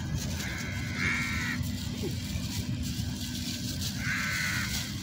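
Two harsh animal calls, one about a second in and another about four seconds in, over a steady low rumble.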